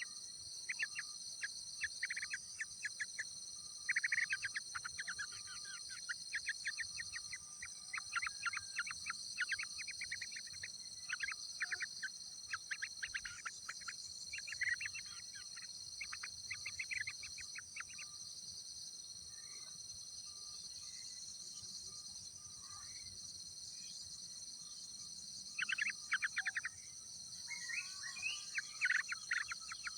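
Yellow-vented bulbuls at the nest chirping in rapid trains of short high notes, in bursts with a pause in the middle. A steady high insect drone runs underneath.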